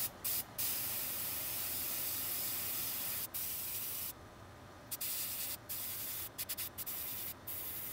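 Airbrush spraying paint in bursts of hiss: a long spray of a couple of seconds near the start, then after a short pause a string of quick, short bursts as the trigger is tapped.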